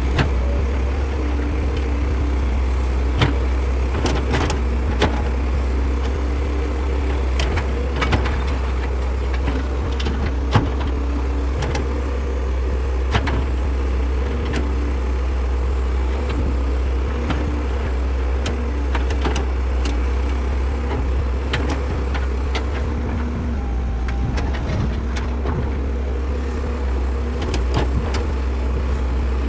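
Heavy machine's diesel engine running steadily with a deep drone, with scattered sharp clanks and knocks of metal working material every second or two.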